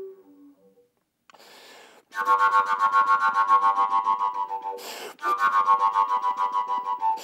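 Fujara, the Slovak overtone flute, played high in its overtones with a fast pulsing articulation of about five pulses a second, after a held note fades out near the start. A short rush of breath about five seconds in splits the two phrases.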